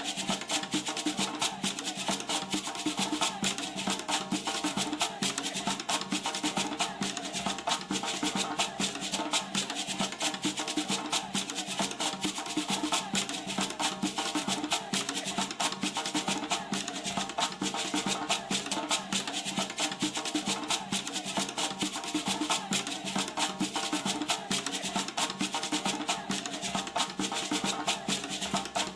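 Percussion music: drums with wood-block-like clicks and a shaker, playing a fast, steady, dense rhythm.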